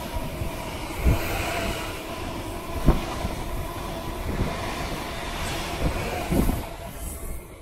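Greater Anglia Class 745 electric multiple unit rolling past close by as it runs in along the platform: a steady rumble of wheels on rail with a few low thumps. The noise drops away near the end as the rear of the train passes.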